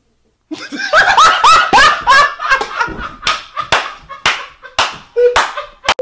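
Loud bursts of laughter, first close together, then breaking into separate sharp bursts about twice a second, with a short steady beep near the end.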